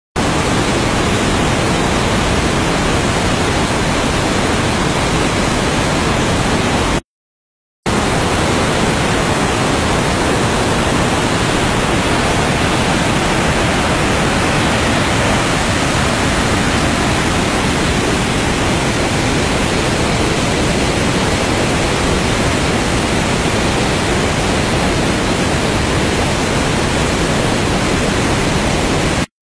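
Water released through opened dam shutters, rushing down the spillway in a loud, steady roar of noise, briefly cut off about seven seconds in.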